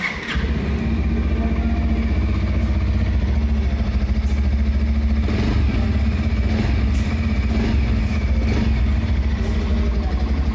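Bajaj Pulsar 150 BS6's 149.5 cc single-cylinder four-stroke fuel-injected engine starts on the button at the very beginning, then idles steadily through its single-pot exhaust with a bassy note.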